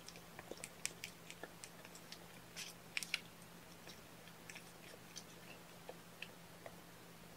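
Newborn kittens nursing: faint, irregular wet clicks and smacks of suckling, several a second, a couple slightly louder about a second and three seconds in.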